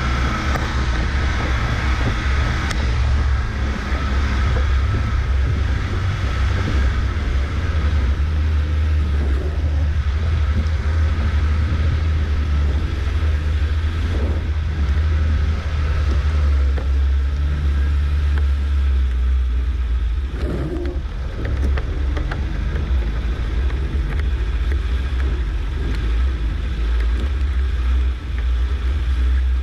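Suzuki SJ413's four-cylinder engine running under way off-road, a loud, steady low rumble with little change in pitch.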